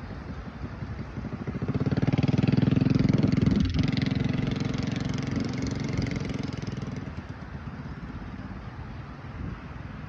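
A motorbike engine passing close by. It builds up, is loudest about three to four seconds in, then fades away over the next few seconds.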